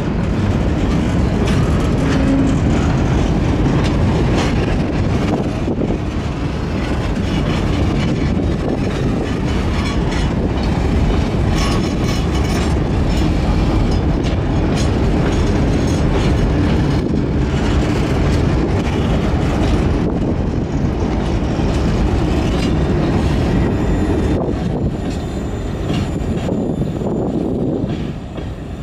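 Long freight train of empty cement boxcars rolling slowly past: a steady rumble of steel wheels on rail with repeated clattering and clicking as the wheels cross the rail joints. It eases off slightly near the end.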